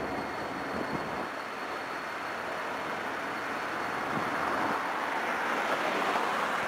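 BNSF diesel-electric freight locomotive approaching slowly at the head of a loaded oil train, a steady running noise that builds toward the end, with a faint steady high whine and a few light knocks.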